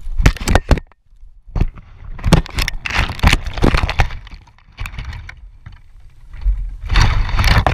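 Branches and twigs scraping, cracking and rustling against a GoPro worn on a border collie as the dog pushes through dense undergrowth, in several bouts of sharp scrapes and cracks with short pauses between them.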